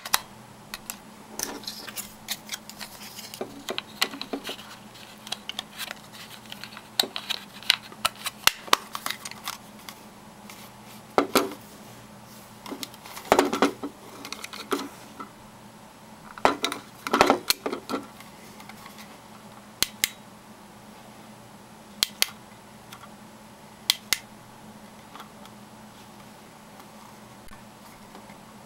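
AA batteries and a small plastic battery lantern being handled: batteries clicking into the compartment and plastic parts clicking and rattling in short clusters. Later come three single sharp clicks about two seconds apart.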